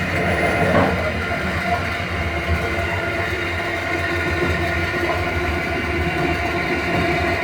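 KA Malabar passenger train running, a steady rumble with low hum and several steady tones, a brief swell about a second in.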